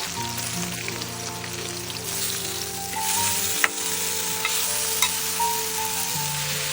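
Steady hiss of heavy rain falling on hard surfaces, with a few sharp drip clicks, over background music with long held notes.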